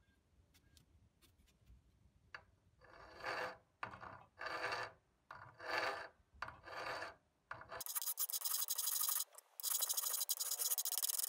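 A hand file rasping across the forged steel head of an Estwing claw hammer to take off rust and imperfections. There are about five separate strokes roughly a second apart, then from about eight seconds in a faster, continuous rasping with one brief break.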